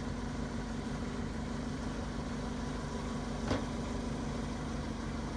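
Van engine idling with a steady hum, with a single sharp knock about three and a half seconds in.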